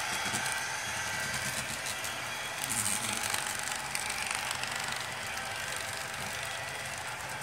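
HO scale model freight cars rolling past on sectional track, their metal wheels clicking over the rail joints with a steady rumble, while the locomotive's DCC sound decoder plays a diesel engine running.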